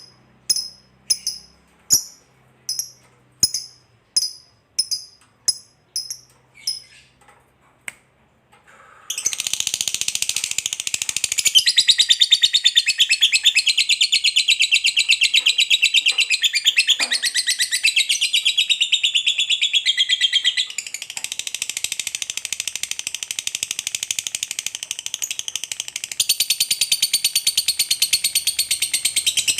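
Lovebird calling: a run of sharp single chirps about two a second that fade away, then, about nine seconds in, a long unbroken rapid chattering trill, the 'ngekek panjang' song prized by lovebird keepers.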